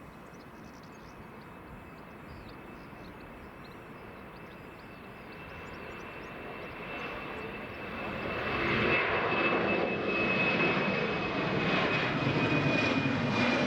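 Embraer E190 jet airliner's GE CF34 turbofans during take-off: engine noise builds over a few seconds to a loud, steady rush with a high fan whine on top that drifts slightly lower near the end.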